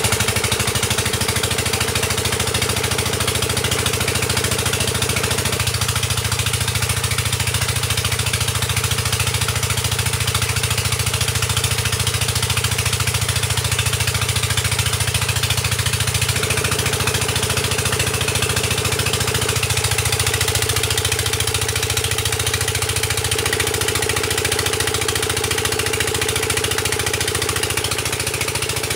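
Engine of a water-well drilling rig running steadily, its firing a fast, even beat.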